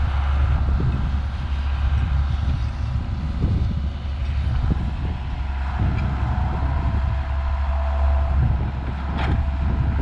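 John Deere 7610 tractor's six-cylinder diesel engine running with a steady low drone, irregular knocks and clatter over it, and a steady whine through the second half. A sharp click comes near the end.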